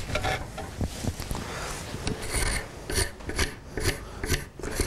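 Quick, repeated rasping strokes of a hand tool scraping excess wood putty off a wooden chair rail. The strokes come faster and more evenly in the second half.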